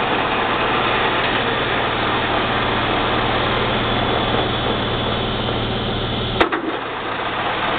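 A 14 x 40 gap-bed engine lathe running with a steady hum. About six and a half seconds in there is a sharp click, and the low part of the hum drops away.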